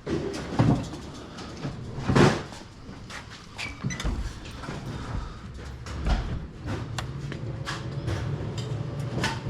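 Clunks and rattles of a combo vending machine's door and panels being closed and handled: two loud knocks in the first couple of seconds, then lighter clicks. A low steady hum comes in during the second half.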